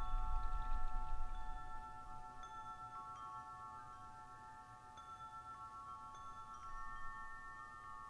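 Soft background score of held chime-like tones forming a sustained chord, with brief higher notes coming in every second or so. A low rumble sits under it for the first couple of seconds, then fades.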